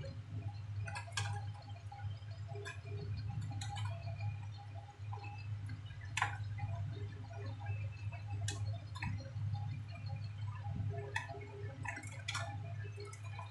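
Irregular sharp plastic clicks and knocks, about eight of them, as a laptop keyboard and its plastic top case are handled and shifted, over a steady low hum.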